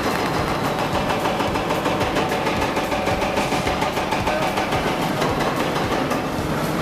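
Heavy-equipment diesel engine running under load, a steady, dense mechanical clatter.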